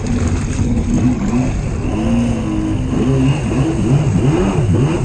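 Stand-up jet ski engine revving up and down as the throttle is worked, with repeated quick rises and falls in pitch in the second half, over the rush of water and spray against the hull.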